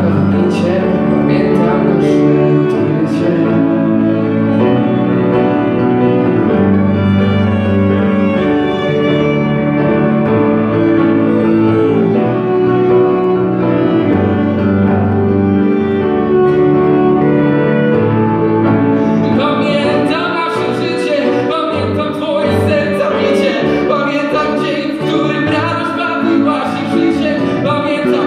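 A small live band of violin, cello, grand piano and electric bass playing a slow song passage with sustained, held chords. About twenty seconds in the music grows fuller and brighter.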